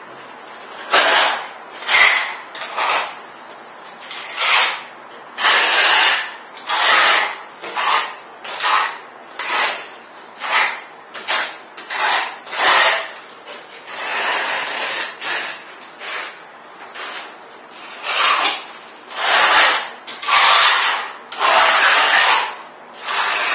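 Notched trowel spreading parquet adhesive over a bare subfloor: repeated scraping strokes, roughly one or two a second, some short and some drawn out.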